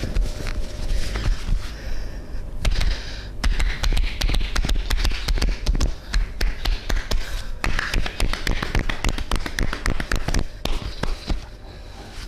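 Hands rapidly tapping and slapping on a body during a massage: many quick percussive strikes a second in fast runs with brief breaks, starting a couple of seconds in and stopping shortly before the end.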